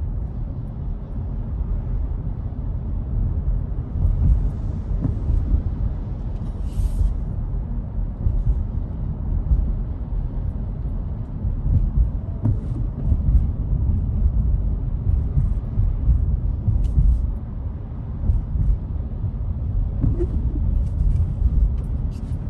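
Steady low rumble of a car driving along, heard from inside the cabin, with a few faint clicks.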